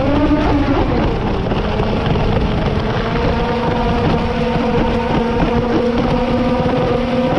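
Radio-controlled boat's motor running at a steady speed, its pitch rising and dipping briefly in the first second, over a steady rush of water at the bow.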